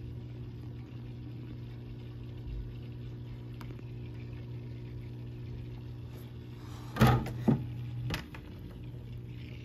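Aquarium water pump humming steadily. About seven seconds in come two sharp knocks half a second apart, then a softer one.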